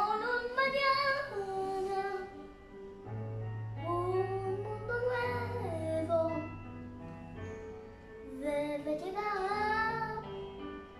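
A young girl sings a slow melody in three phrases with short pauses between them, over an instrumental backing of held chords and bass notes.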